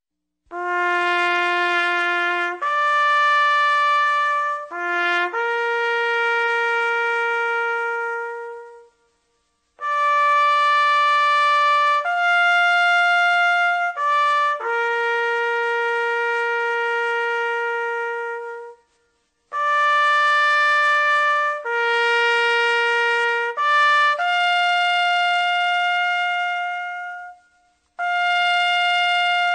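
Bugle call on a solo brass horn: long held notes in three phrases with short pauses between them, and a fourth phrase beginning near the end.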